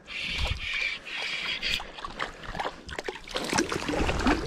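Splashing and sloshing of a hooked brook trout being brought in and landed at the creek's edge, with a cluster of close knocks and rustling in the last second or so as it is handled.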